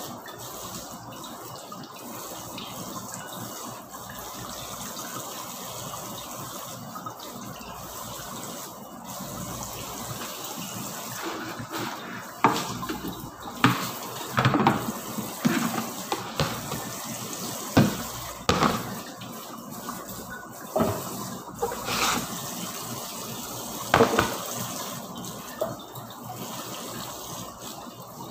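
Kitchen tap running steadily into a sink while dishes are washed. About midway the dishes and a plastic basin start to clatter and knock against the sink in a run of sharp, loud knocks.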